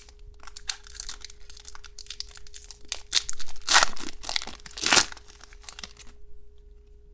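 A trading-card pack's foil wrapper crinkling and being torn open, an irregular run of crackles with a few louder rips about three, four and five seconds in.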